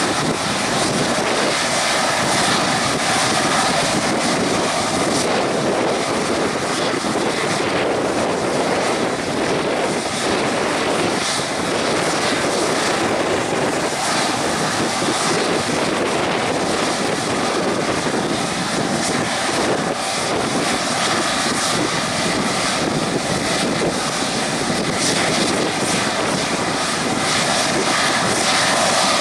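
Boeing 777-200's jet engines idling steadily while the airliner holds on the runway before take-off: a constant whine and rush of noise.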